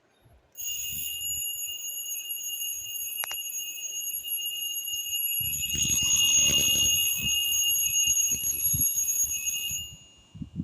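A homemade alarm clock's alarm sounding as one steady high-pitched tone. It starts about half a second in and cuts off shortly before the end. Irregular low knocks and handling noises join it from about halfway through.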